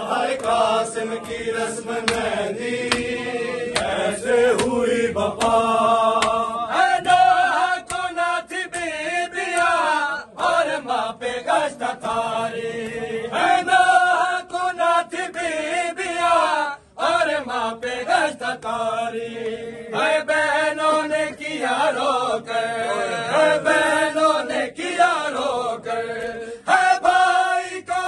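Men's voices chanting an Urdu noha lament together in long held lines, with sharp hand slaps of chest-beating (matam) sounding through the singing.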